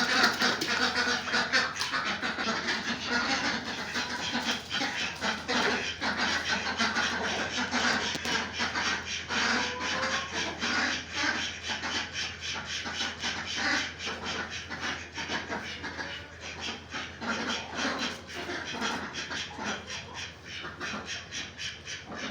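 Farm animals making a dense, rapid run of short, breathy sounds, many per second, continuing steadily.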